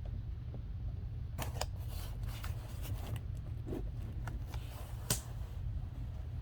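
Trading-card packs and packaging rustling and crinkling as they are handled: a run of quick rustles and clicks from about a second and a half in until past five seconds, the sharpest click near the end of the run, over a steady low hum.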